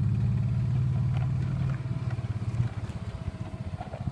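Engine of a small open vehicle running as it drives along, with a steady low hum that drops in level about two seconds in.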